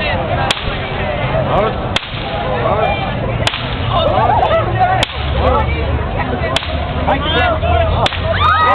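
A whip cracking six times at an even pace, one sharp crack about every second and a half, over crowd chatter.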